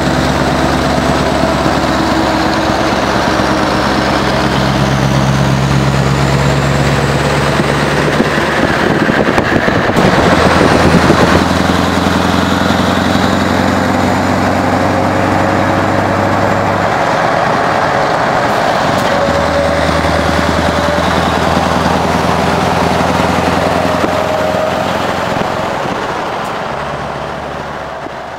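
Scania R500 truck's V8 diesel running at motorway speed beside the recording car, a low drone over heavy tyre and wind rush. The engine note steps in pitch a few times, and the rush swells loudest about ten seconds in; the sound fades out near the end.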